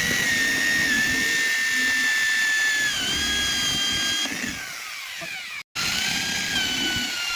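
Electric drill running with a high whine, its pitch sagging now and then under load; it winds down about four seconds in, cuts out abruptly, then runs again near the end.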